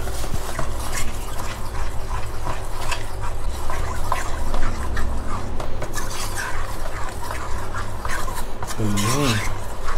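A metal spoon stirs thin rice-flour batter round a bowl, a continuous wet scraping as the batter is mixed to the right thickness. A brief voice sound comes near the end.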